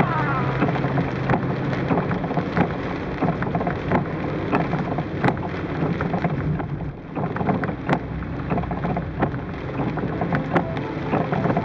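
Heavy cloudburst rain beating on a car's roof and windshield from inside the moving car: a dense hiss full of sharp drop taps, over the low rumble of tyres on a waterlogged road.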